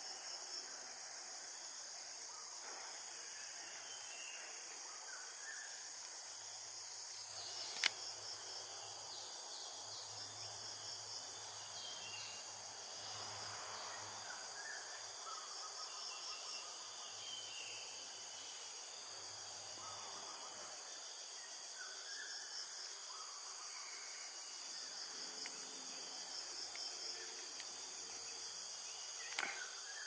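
Steady high-pitched insect chorus, with faint short chirps scattered through it and one sharp click about eight seconds in.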